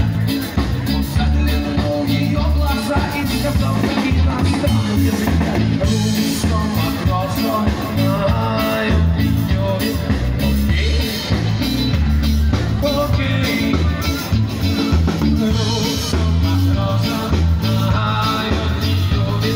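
Rock band playing with a singer: a steady drum and bass beat under electric guitar and vocals.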